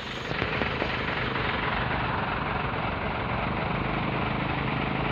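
Heavy truck's engine running steadily, a low rumble under a broad rushing noise.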